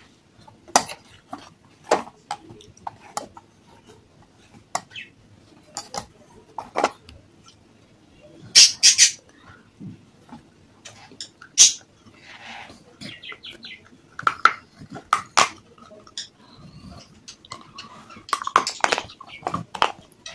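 Fired clay pot pieces bitten and crunched close to the microphone: sharp, crisp cracks coming irregularly, with the loudest crunches clustered about nine, eleven and nineteen seconds in.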